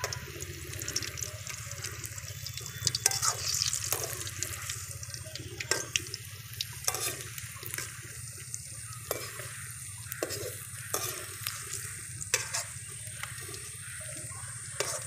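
Mango fritters deep-frying in hot mustard oil in a metal kadai: a steady sizzling hiss, with brief clinks and scrapes every second or two as a slotted metal spoon turns them against the pan.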